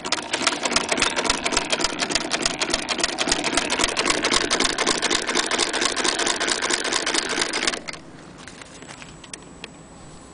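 Hand-cranked 1890 Singer Model 12K sewing machine stitching, with a rapid, even clatter of the needle and feed mechanism. It stops about three-quarters of the way through, leaving only a few faint clicks.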